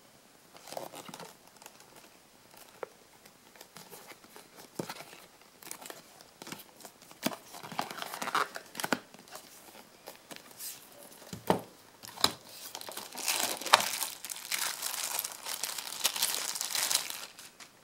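Cardboard box and clear plastic wrapping being handled as a small digital alarm clock is unboxed: irregular rustling and crinkling with a few sharp knocks. The crinkling grows denser and louder over the last few seconds as the plastic bag around the clock is handled.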